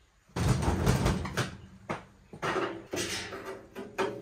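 Handling noise: a run of scraping and rustling with several sharp knocks, as of heavy metal parts and equipment being moved and set down.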